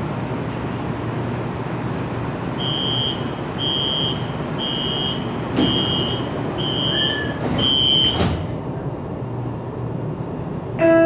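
LRT train door-closing warning: six high beeps about a second apart, then the doors shut with a thump, over the steady hum of the stationary train.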